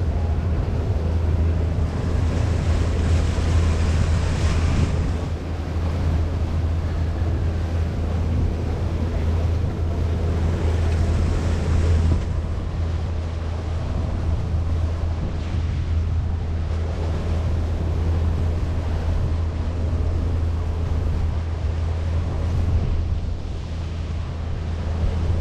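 Tiki boat under way: a steady low motor hum with wind buffeting the microphone and water rushing past, the wind and water noise swelling a couple of times.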